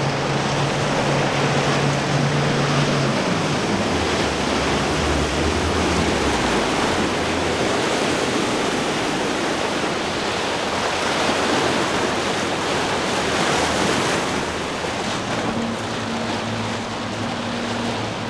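A powerboat's quad Mercury Racing 450 hp outboards running at speed, a steady low hum that drops in pitch about three seconds in as the boat goes by. Loud rushing of spray and churned wake water runs throughout. Another boat's engine hum comes in near the end.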